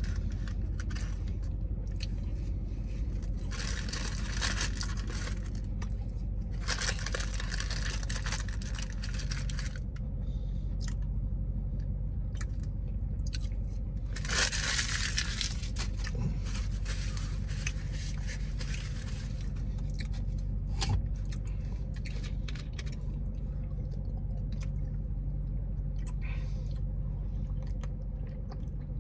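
Food wrapper rustling and crinkling in several bursts, the loudest about halfway through, with small handling clicks and chewing, over a steady low hum of the car's cabin.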